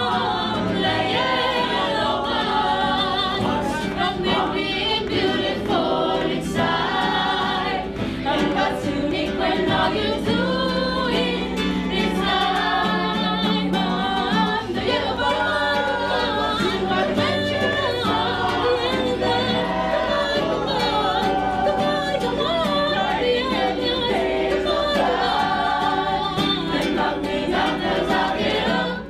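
A small group of voices singing a song together, accompanied by an acoustic guitar.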